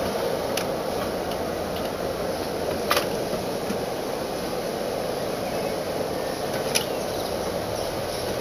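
Canal boat's engine running steadily as the boat moves ahead slowly, with a few sharp clicks, the loudest about three seconds in.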